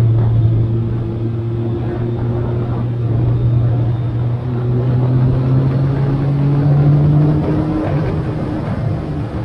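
Triumph Sprint ST 955i's inline three-cylinder engine running under way, heard from the front of the motorcycle. Its note climbs slowly as the revs build, then changes pitch about eight seconds in.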